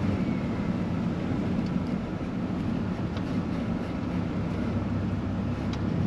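Vehicle driving, heard from inside the cab: a steady low rumble of engine and tyre noise with a few faint clicks.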